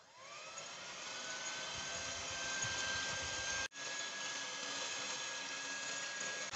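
Electric hand mixer starting up, its motor whine rising in pitch and then running steadily as the beaters whisk oil and powdered sugar. The sound breaks off for an instant a little after halfway.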